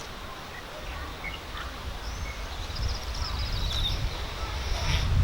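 Hill myna calling: a few faint chirps, then a rapid, high chattering run of notes lasting about two seconds, over a steady low rumble.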